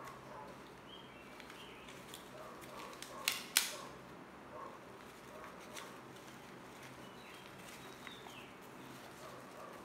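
Newspaper and foil plant wrapping crinkling and rustling as it is pulled open by hand, with two sharp crackles close together about three seconds in.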